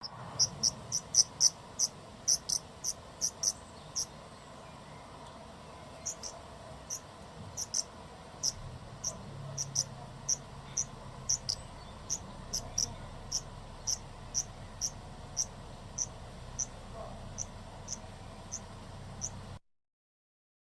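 Insect chirping: short, high chirps, quick and irregular at first, then about two a second, over a faint steady background hiss; the sound cuts off abruptly near the end.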